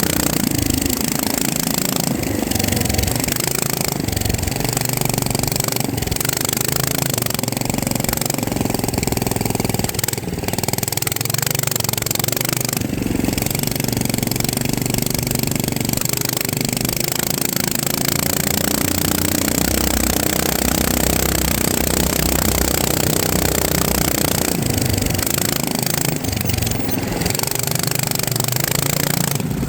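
FPV drone's electric motors and propellers buzzing, the pitch rising and falling as the throttle changes.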